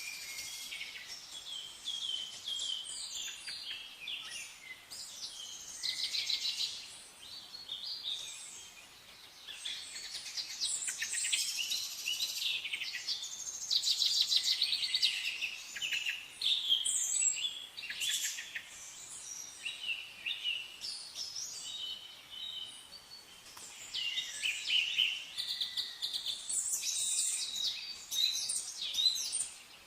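Several songbirds singing and chirping together in a dense chorus of high, quick chirps and rapid trills that rise and fall in loudness, over a faint background hiss.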